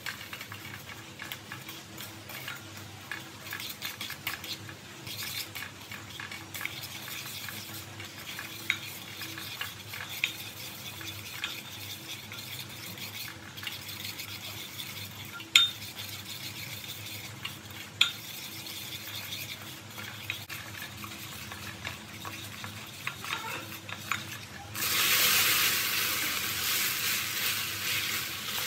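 Spatula stirring and scraping sugar melting into caramel in a hot pot: a low sizzle with scattered sharp clicks of the spatula against the pot. About 25 seconds in, a much louder sizzling hiss starts, as chunks of breadfruit are in the hot caramel.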